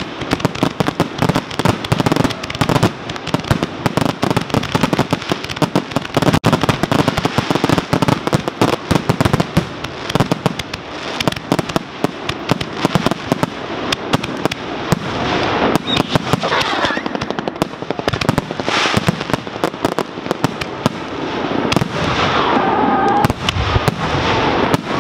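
Fireworks barrage: a rapid, unbroken run of overlapping bangs and crackles from aerial shells and ground-fired cakes, many reports a second, growing louder and more continuous in the second half.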